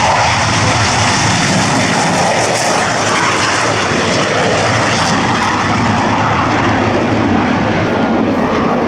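Jet aircraft engine noise, loud and steady throughout.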